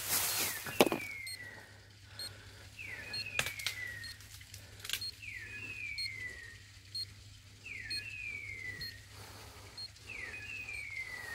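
A DOG GPS X20 dog collar's beeper repeats a falling electronic call every two to three seconds, each a short upward flick and then a slide down in pitch. The call signals that the dog is standing on point. A few sharp snaps come between the calls, the loudest about a second in.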